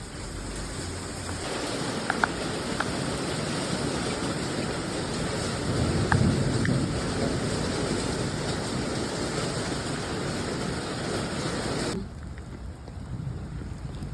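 Heavy rain pouring down, with a few light ticks in it; the sound cuts off abruptly about twelve seconds in.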